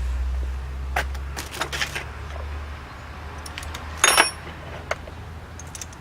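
Metal hand tools and bolts being handled during engine work: several short metallic clinks and jingles, the loudest and most ringing about four seconds in, over a low steady hum.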